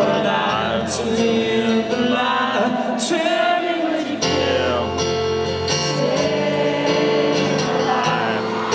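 Live rock band music: held keyboard and bass notes with singing voices over them.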